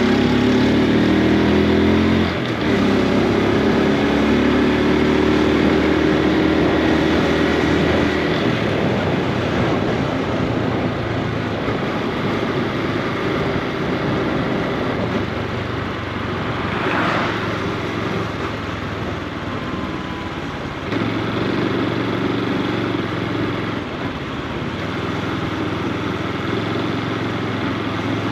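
Honda Super Cub C125's single-cylinder four-stroke engine under way, pulling hard with rising pitch for the first eight seconds or so, then easing off to a lower, steadier run before picking up again about three-quarters of the way through.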